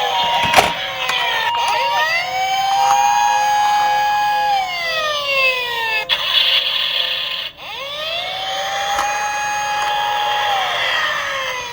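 Several emergency-vehicle sirens wailing together at different pitches, each rising slowly, holding, then falling, in two cycles of about six seconds. There is a sharp click about half a second in.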